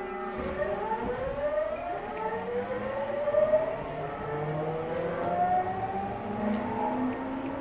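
Tokyu 9000 series train heard from inside a motor car as it accelerates: the VVVF inverter and traction motors give several whines that climb steadily in pitch over the rumble of the running gear.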